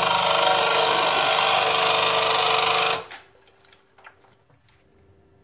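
Brasilia Lady espresso machine's vibratory pump running noisily while priming the boiler and pushing water through the group head. It cuts off suddenly about three seconds in, leaving a faint hum and a few light clicks.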